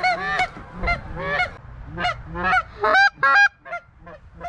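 Geese honking: a rapid run of short, pitched honks, two or three a second, some overlapping, loudest about three seconds in.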